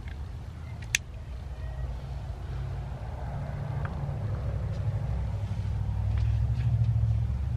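A low, steady motor-vehicle rumble that swells over several seconds, with one sharp click about a second in.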